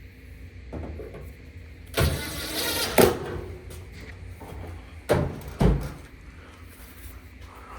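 A cordless drill or power screwdriver runs for about a second, driving a dryer panel screw home, and ends with a sharp click. Two short knocks follow about half a second apart.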